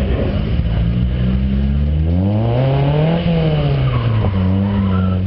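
Car engine heard from inside the cabin during an autocross run: it pulls steadily, then revs up for about a second to a peak around three seconds in and falls away as the throttle comes off. A brief tire squeal comes near the end.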